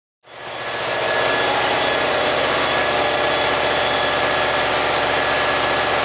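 Large EMD two-stroke diesel engine running steadily with a fast, even beat, coming in within the first second.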